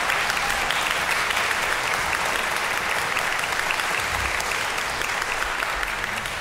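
Audience applauding at the end of a performance: dense, steady clapping that eases off slightly near the end.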